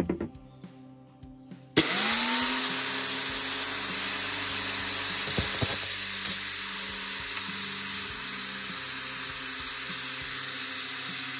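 Angle grinder switched on about two seconds in: its motor winds up in pitch and then runs steadily at full speed with a loud, even rush.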